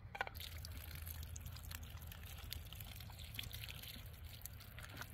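Water poured from a plastic canister onto the charred remains of a campfire, splashing and trickling with many small drips.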